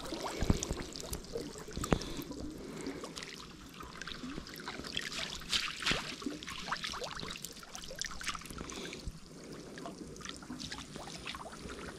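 Water splashing and dripping in small, irregular splashes and drips over a faint steady trickle.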